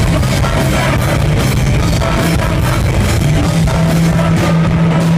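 Live rock band playing loud through a PA: electric guitars, bass and a drum kit with crashing cymbals, and a low note held through the last part.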